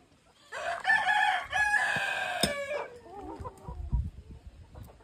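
Rooster crowing once, a long call of about two seconds with a short break and a falling end. A few dull thumps follow about four seconds in, from a hoe striking the soil.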